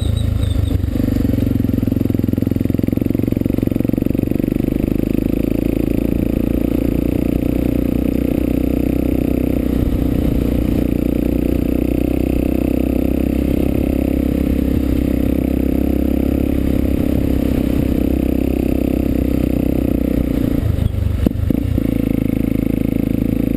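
Honda XR 250 Tornado's single-cylinder engine running at a steady road speed, heard from a helmet-mounted camera, with a short clatter near the end.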